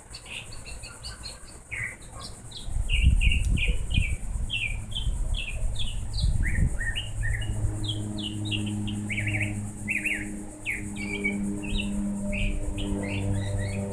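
Many small birds chirping in short, quick high notes throughout. A loud low rumble comes in about three seconds in and lasts a few seconds, and from about halfway a low hum with several steady pitches runs underneath.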